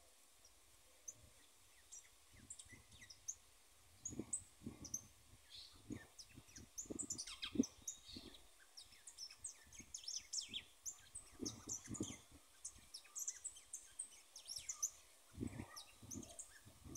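Caged wild-caught chiviro finch singing: a fast, faint twittering of short high chirps and trills that grows busier a few seconds in, with scattered low thumps. It is the bird's first song after months in the cage.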